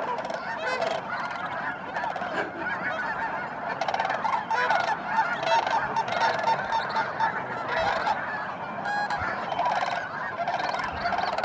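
A large flock of snow geese calling: a dense chorus of many overlapping honks, growing a little louder a few seconds in.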